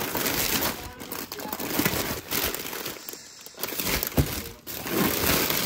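Plastic packaging crinkling and rustling as a hand rummages through sealed packs of raw dog food in a plastic-lined box, with a dull knock of packs about four seconds in.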